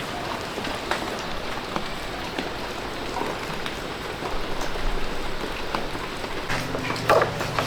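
Steady rain-like hiss of water with scattered small clicks and taps; a low steady hum comes in near the end.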